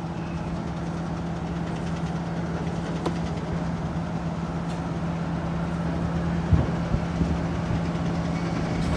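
Freight train of hopper cars on the tracks below, a steady rumble with a constant low diesel engine hum, and a couple of clanks about six and a half to seven seconds in.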